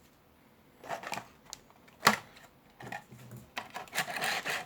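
Hands handling toy packaging: a few light clicks and knocks, one sharp click about two seconds in, then about a second of rustling near the end.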